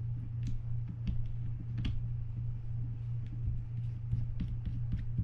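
Scattered light clicks and taps of small fishing-reel parts being handled and fitted, at irregular intervals, over a steady low hum.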